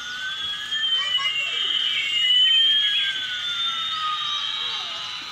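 Battery-operated light-up toy airliner playing its electronic sound effect: two thin electronic tones, one gliding slowly up and one gliding slowly down, crossing about two seconds in, where the sound is loudest.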